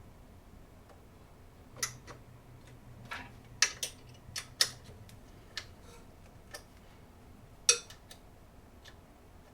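Hard parts being handled: a series of irregular sharp clicks and taps, the loudest about three and a half, four and a half and eight seconds in.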